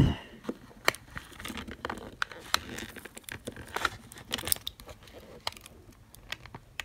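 Plastic case of a power bank being pried apart by hand: irregular small clicks, creaks and crackles as the shell halves flex and the clips and double-sided tape holding the swollen battery give way. A louder noise cuts off right at the start.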